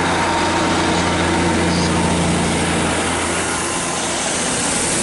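Class 150 Sprinter diesel multiple unit's underfloor diesel engines running as the train moves off along the platform, a steady low drone.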